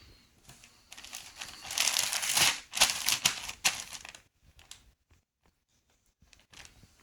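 Packaging crinkling and rustling as it is handled and opened, with a louder stretch of crinkling and tearing about two to four seconds in, then only faint scattered rustles.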